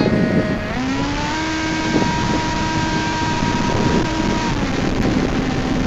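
Electric motor and propeller of a Sky Surfer v5 RC plane whining in flight. The pitch steps up about a second in as the throttle is opened, holds, then drops back near the end as the throttle is eased, against wind noise.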